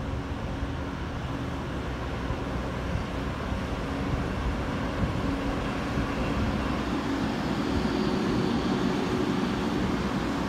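Taiwan Railway EMU300 electric multiple unit running along the platform track, a steady rumble of wheels on rail with a motor hum that grows louder as it comes closer.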